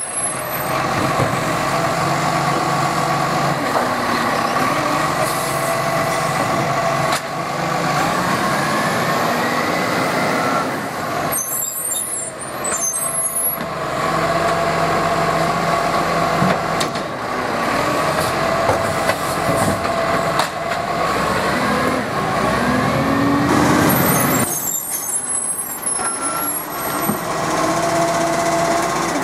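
Side-loader garbage truck's diesel engine running, with the hydraulic system whining steadily as the automated arm grabs and lifts a wheelie bin. The engine and whine rise in pitch several times as the arm works.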